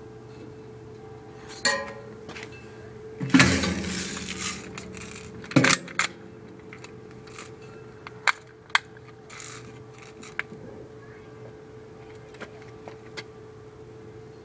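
An airsoft gun being handled and readied: scattered sharp clicks and a loud rattling clatter a few seconds in, then a single sharp snap of the gun firing right at the end.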